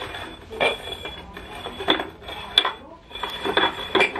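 Upturned metal goblets being shuffled across a tiled floor, clinking against each other and the tiles in several sharp knocks, with a thin ringing note between them.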